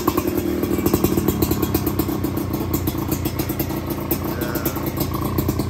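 Kawasaki Ninja two-stroke single-cylinder engine in a Husqvarna-replica dirt bike, running steadily at idle with a fast, even pulse from its expansion-chamber exhaust.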